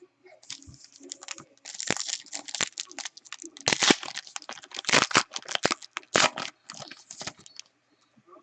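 Wrapper of a trading card pack crinkling and tearing as it is opened, in a run of irregular crackles that stop near the end.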